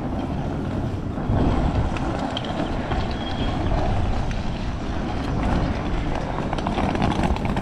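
City street traffic: a motor vehicle's low rumble that swells about a second in and holds, over general street noise.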